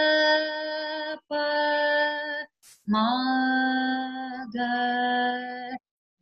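A woman's voice sings a Carnatic swara exercise without accompaniment: four long held notes with short breaks between them. The second pair is lower than the first, and its first note slides up into pitch.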